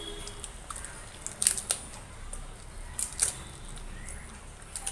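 Crisp papad crunching as it is bitten, in two short bursts of sharp crackles about a second and a half apart.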